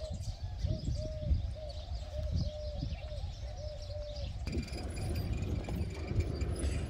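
A dove cooing in a quick run of short, soft, low notes over a low rumble. After about four and a half seconds the cooing stops and fainter, higher bird chirps take over.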